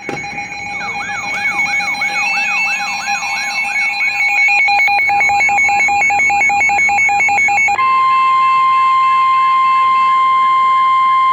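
Electronic emergency alert tones. Overlapping steady tones, a repeating rising-and-falling whoop about two and a half times a second, and fast on-off beeping give way about eight seconds in to one steady alarm tone, the NOAA Weather Radio warning alarm that announces a warning, which cuts off suddenly.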